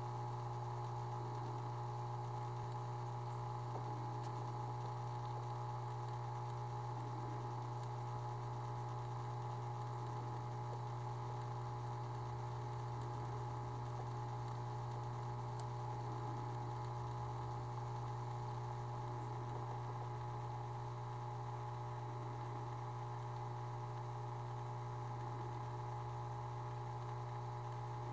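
Steady low hum of running aquarium equipment, with faint water bubbling over it and a single faint click about halfway.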